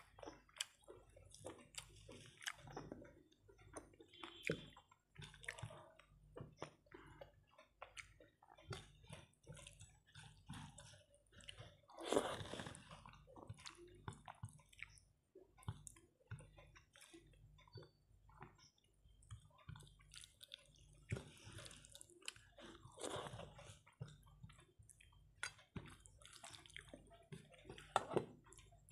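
Chewing and wet mouth sounds of someone eating rice with her hand, with soft squishes of fingers mixing rice on a plate and a few louder smacks.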